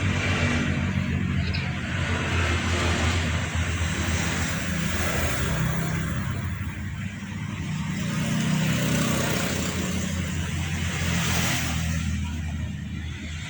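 Steady low engine hum with road noise from a vehicle, swelling and easing slightly in level.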